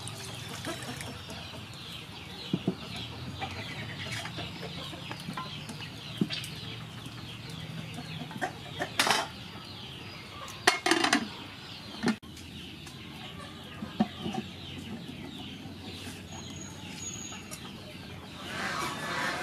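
Chickens clucking in the background throughout, with a few sharp metallic knocks from an aluminium cooking pot and its lid being handled, the loudest a little past the middle.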